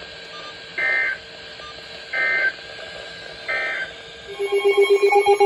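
Three short, raspy digital data bursts of the NOAA Weather Radio SAME alert code, about a second and a half apart, coming from weather radio speakers over a low hum. Near the end a louder pulsing alert tone starts.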